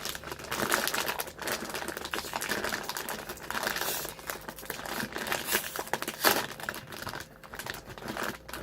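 Plastic snack packaging crinkling and rustling as it is torn open and handled, in irregular crackles with a sharper crackle about six seconds in.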